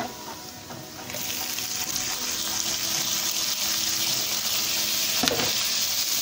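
Onions sizzling in hot oil in a frying pan. About a second in, the sizzle jumps much louder and stays steady as diced tomatoes go into the hot oil. A few light knocks near the end.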